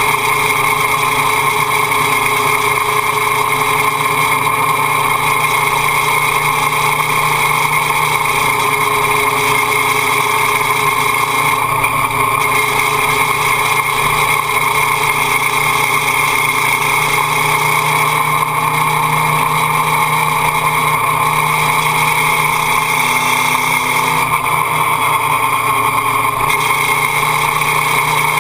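Motorcycle engine running at a steady, even pitch while the bike is held in a long lean, the revs barely changing.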